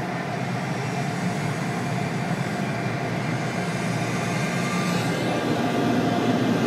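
Automatic car wash heard from inside the car: a steady rushing rumble of water spray and wash machinery against the body, growing louder toward the end.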